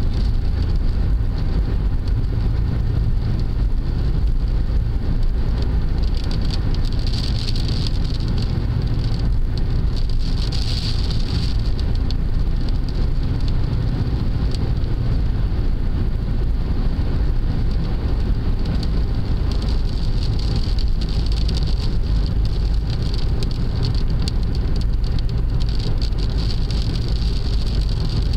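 Road noise inside a car driving in the rain: a steady low rumble of tyres and engine, with a higher hiss of wet road and rain that swells and fades several times.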